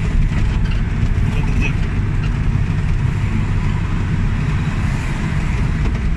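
Renault car's engine and tyre noise from inside the cabin while driving at a steady speed, with the car's bonnet off. A steady low rumble.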